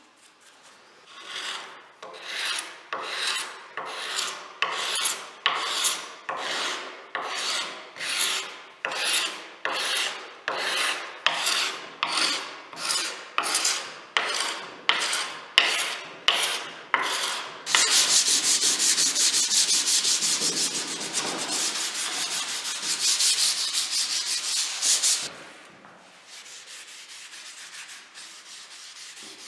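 Hand sanding: rhythmic rubbing strokes, about three every two seconds. About two-thirds of the way through they change to a faster, continuous rubbing for about seven seconds, then drop to a fainter steady rubbing.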